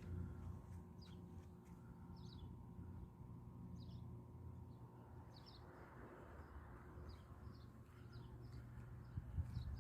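Faint bird chirps, short high notes dropping in pitch and repeating about once a second, over a low steady hum.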